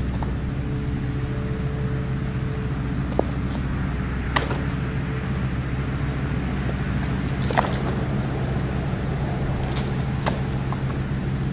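Engine idling steadily, with a few sharp clicks over it.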